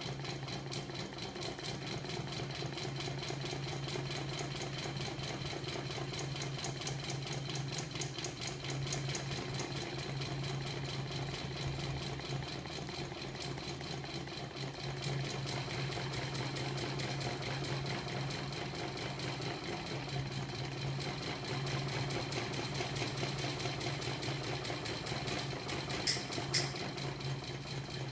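Homemade magnet-motor rig running steadily: steel rotor drums spinning on their shaft alongside a small electric motor, giving a steady hum with a fast, even ticking. Two sharper clicks near the end.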